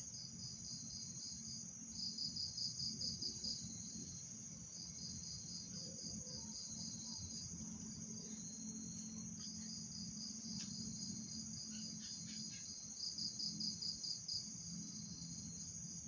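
Night insects, crickets, calling: a steady high-pitched trill with runs of rapid pulsed chirps over it, loudest about two seconds in and again near the end.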